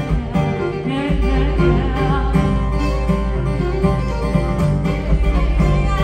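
A live acoustic band plays an upbeat tune: fiddle, acoustic guitar and upright double bass, with a woman singing. A deep bass comes in strongly about a second in.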